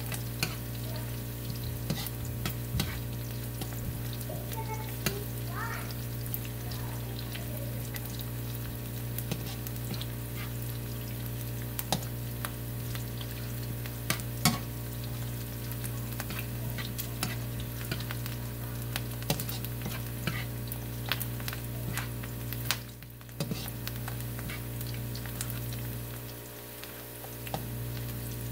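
Sliced onions and garlic sizzling in oil in a nonstick wok as a slotted spatula stirs them, with frequent small clicks and scrapes of the spatula against the pan. A steady low hum runs underneath.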